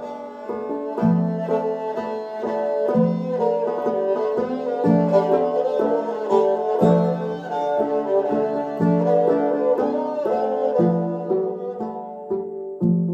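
Live acoustic string music: an upright bowed string instrument and a plucked long-necked lute playing together over a low note that swells about every two seconds, with quick plucked notes running through it.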